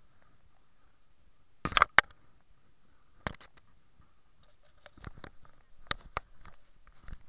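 Handling noise on a handheld camera's microphone: a few sharp knocks and bumps, the loudest pair about two seconds in, then a cluster of smaller clicks and rubs near the end, over a faint steady hiss.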